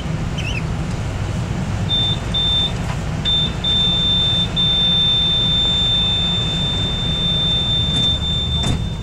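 A train's door warning buzzer beeping at a station stop: a few short high beeps about two seconds in, then one long unbroken tone from about halfway through, signalling that the doors are about to close. Under it runs the steady low rumble of the standing train.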